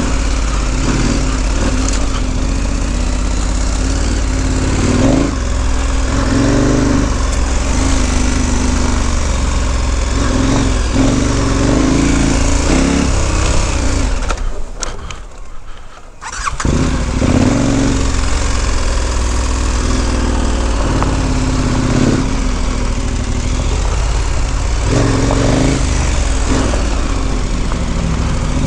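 KTM 1290 Super Adventure R's V-twin engine running as the motorcycle is ridden off-road, its note rising and falling with the throttle over a steady rushing noise. The sound drops away briefly about halfway through.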